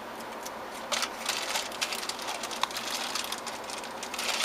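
Small hardware parts being handled: a rapid patter of light clicks and rattles, starting about a second in, over a steady low hum.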